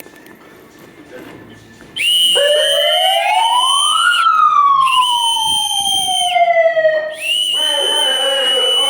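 A siren-like wail starting suddenly about two seconds in: a steady high tone over a pitch that climbs for about two seconds and then slowly falls, with brief breaks in the high tone.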